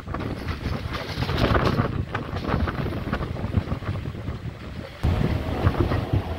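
Passenger train moving out along a station platform, heard from an open coach door: running noise from the coach with a low rumble and short knocks, and wind buffeting the microphone. The rumble gets louder about five seconds in.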